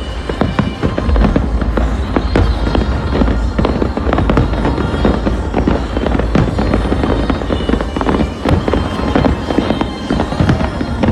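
A dense, continuous barrage of fireworks going off, many bangs and crackles in quick succession over a deep rumble, with music playing underneath.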